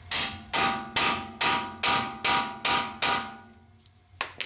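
A hammer strikes the steel end cap of a Vessel #3 JIS impact screwdriver eight times in quick, even succession, each blow with a short metallic ring. The blows drive the screwdriver's tip in and turn it to break a stuck, rusted Honda brake rotor screw loose.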